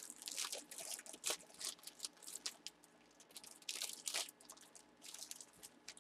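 Packaging crinkling and rustling as it is handled, in short crisp crackles that come and go in irregular spells.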